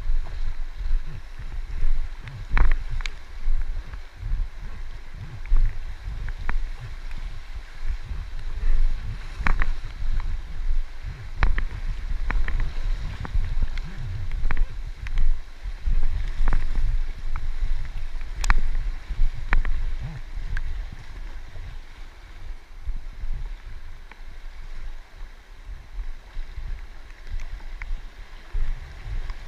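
River water running and splashing around an inflatable kayak, with a low, uneven wind rumble on the microphone. Occasional sharp clicks, about a dozen, break through, the strongest near the start and past the middle.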